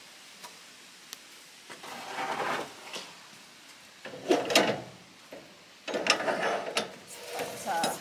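Cedar boards being shifted and laid down on a lumber pile: wood scraping and knocking on wood in several separate bouts, the loudest about halfway through.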